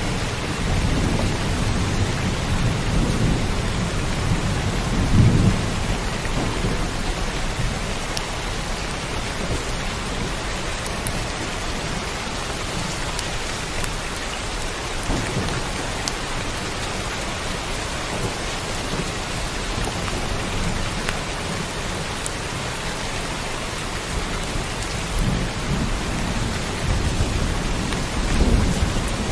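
Heavy rain falling steadily, with deep rumbles of thunder: one rolling through the first few seconds and peaking about five seconds in, another building near the end.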